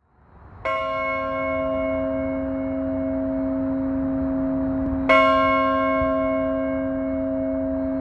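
Church bell tolling slowly: two strikes about four seconds apart, the first just under a second in, each ringing on with a long, steady hum.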